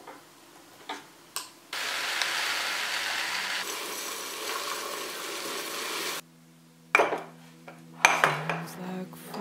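Dry muesli poured into an IKEA glass clip-top jar: a steady rushing rattle that starts about two seconds in and cuts off after about four and a half seconds. Light clicks of glass and wire clasps come before it, and sharp clinks of the jars' glass lids come near the end.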